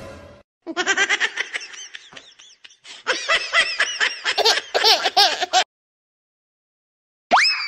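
High-pitched laughter in quick pulses that rise and fall in pitch, lasting about five seconds with a short break around the two-second mark. Near the end comes one short whistle-like tone that sweeps up and then dips slightly.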